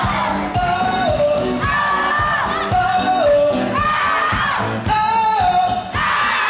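Upbeat pop music with a steady beat and singing: a short sung phrase that drops in pitch at its end, repeated over and over.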